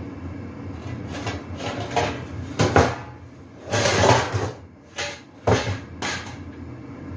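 Stainless steel pans clanking and scraping against each other and the shelf as they are pulled down from a high kitchen cupboard: a series of metallic knocks and clatters, the loudest a little under three seconds in.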